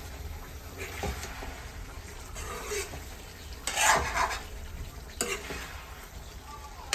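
A wooden spatula stirring and scraping food around a steel kadai over a gas flame, with a loud scrape against the pan about four seconds in and shorter ones after five seconds and at the end.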